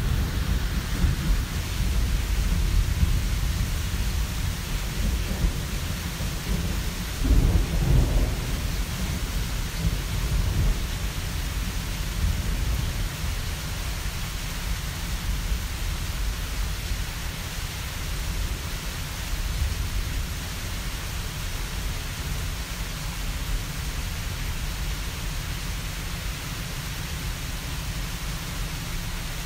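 Thunderstorm: low rolling thunder, loudest about seven to eight seconds in, over steady rain. The rumble eases after the first dozen seconds while the rain keeps on.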